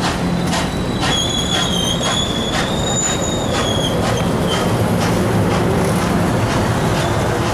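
Passenger cars rolling past close by with a steady rumble and wheels clicking rhythmically over rail joints. A high, wavering wheel squeal starts about a second in and lasts a few seconds.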